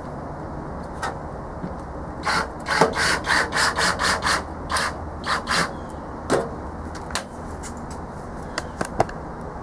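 A hand tool scraping metal on the blower motor's mounting bracket: a quick run of about a dozen short rasping strokes, about three a second, then a few single sharp clicks.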